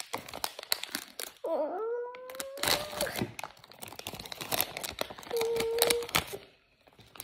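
Scissors snipping and crinkling clear plastic packaging, a run of small crackles and clicks. A child gives a wordless sliding note that levels off about a second and a half in, and a shorter held note near the end.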